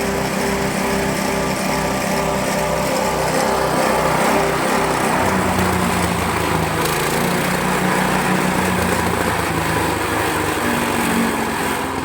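Small engine running a multifunction grass chopper machine. It pulses about twice a second at first, then runs steadier with a change in pitch from about five seconds in.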